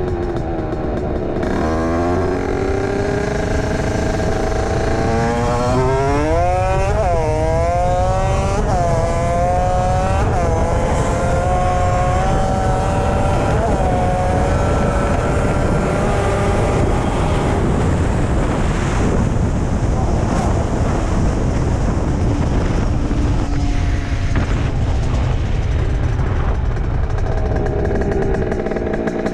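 Rieju MRT Pro's two-stroke engine, fitted with an 86 cc Top Performance aluminium cylinder kit and a Voca expansion exhaust, revving up through the gears. The pitch climbs and drops back about six times in the first half, then holds steadier and sinks under heavy wind noise on the microphone.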